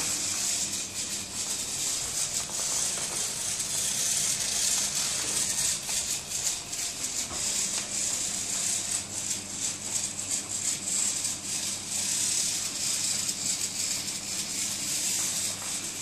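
Small line-following robot driving along its track, its little plastic-geared motors giving a steady rattling buzz over a faint low hum.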